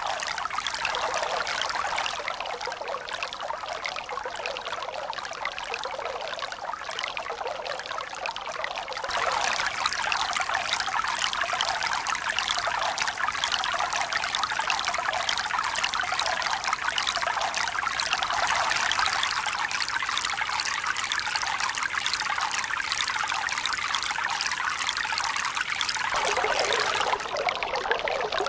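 Steady running water, trickling and pouring with no swell-and-recede rhythm. It steps abruptly louder and fuller about nine seconds in, and changes again just before the end.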